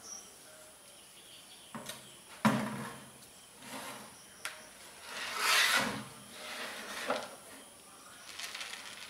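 Plastic jerrycan pushed and dragged across a concrete floor by a toddler: a series of scrapes and knocks, the loudest knock about two and a half seconds in and a longer scrape around five to six seconds in.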